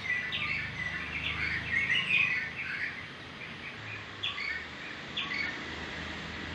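Drongo whistling: a quick run of short, sharp whistled and chattering notes, busiest in the first two seconds or so, then a few separate notes spaced out.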